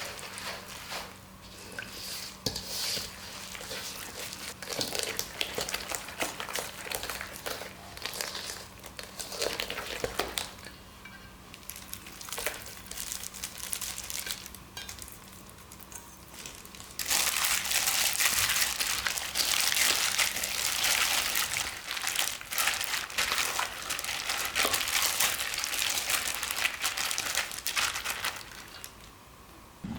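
Crinkling and rustling with scattered clicks, like plastic packaging being handled during food preparation. A bit over halfway through, a denser, louder crackling hiss takes over.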